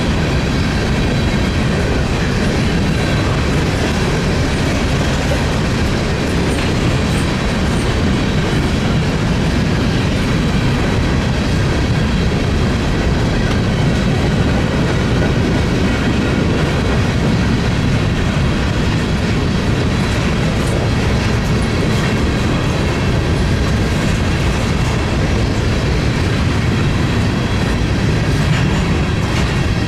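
Freight train cars rolling past at a steady pace. The rumble of the wheels carries light rhythmic clicking over the rail joints and faint thin metallic tones from the wheels on the rail.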